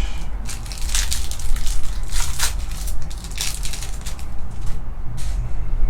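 Trading cards being handled: a run of irregular scraping and crinkling rustles as cards are slid and flipped, over a steady low hum.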